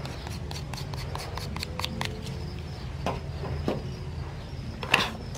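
A blade scraping the striker strip of a cardboard matchbox: a quick run of short scratchy clicks that thins out, with a sharper click near the end.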